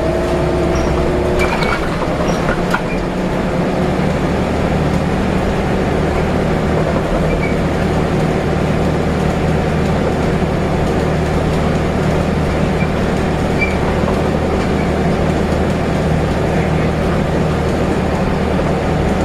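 Volvo B7RLE single-deck bus heard from inside while driving: a steady engine drone, with a higher whine that fades out in the first couple of seconds. Two short clicks or rattles come in the first three seconds.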